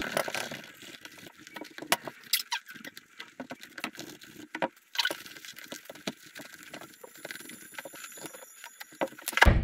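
Dish sponge scrubbing the plastic strut of an Alpinestars Tech 10 motocross boot, cleaning it before gluing: irregular scratchy rubbing with many small clicks, and a louder knock near the end.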